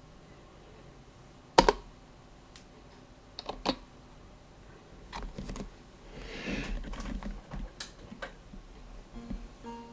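A few separate sharp button clicks, the loudest about one and a half seconds in, with a brief rustle of handling a little after the middle.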